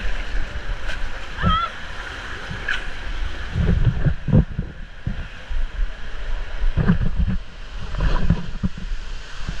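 Inflatable raft tube sliding down a water slide: a steady rush of running water, with bursts of deep thumps as the tube bangs along the slide walls, about a second and a half in, around four seconds, and again around seven and eight seconds.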